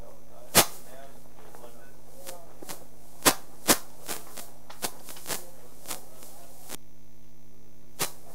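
Sharp knocks, most likely bumps on a handheld microphone: a loud one about half a second in, two close together a little after three seconds, fainter taps after that and another near the end. Underneath runs a steady low electrical hum.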